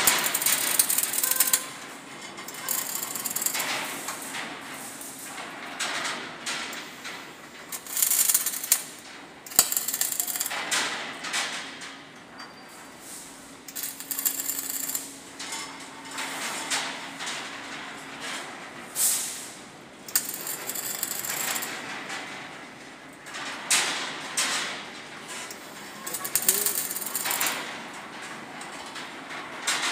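Short bursts of electric arc-welding crackle from a handheld welding gun, each about a second long and repeated every couple of seconds as spiral wire is tack-welded to the main bars of a steel rebar cage. A steady low hum runs underneath.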